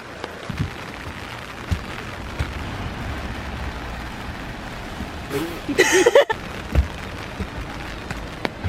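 Steady rain noise with scattered light taps and drips. A short high-pitched voice sounds about six seconds in.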